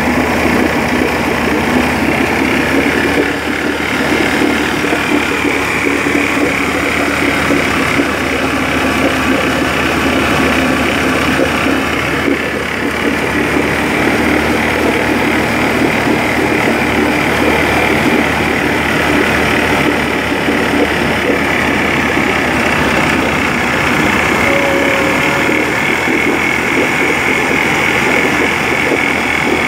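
Small outboard motor running steadily, its propeller turning in a drum of water and churning it, on a test run of the engine out of the water.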